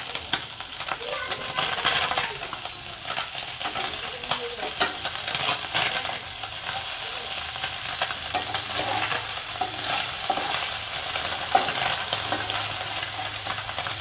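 Small mourala fish sizzling as they fry in hot mustard oil in a kadai, a steady crackling hiss with scattered light clicks.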